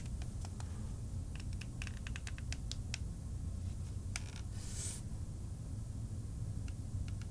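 Light clicks and taps of a DJI FPV drone's plastic body and propellers being turned over and handled, with a brief rustle about four and a half seconds in, over a steady low hum.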